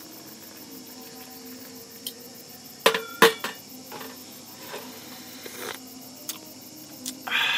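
Stainless steel kettle clinking twice against the portable gas stove as it is set back down, with a few lighter knocks of kettle and cup being handled. A short louder rush of noise comes near the end.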